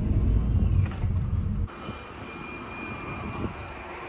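Citroën C5 Aircross 1.2 three-cylinder turbo petrol mild-hybrid engine idling with a steady high whine, a vacuum-cleaner-like sound that the owner suspects comes from the turbo. A loud low rumble covers the first second and a half.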